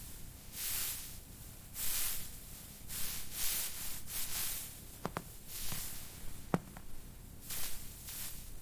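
Soft swishing hisses repeating about once a second, with two or three sharp clicks about five and six and a half seconds in.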